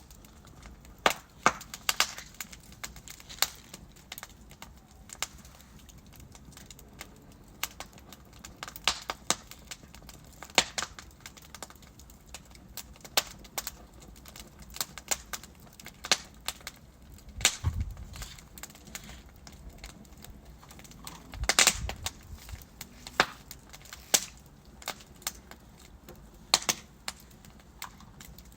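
Burning wood logs in a fireplace crackling, with sharp irregular pops and snaps over a faint steady hiss. Two louder pops with a low thud come past the middle.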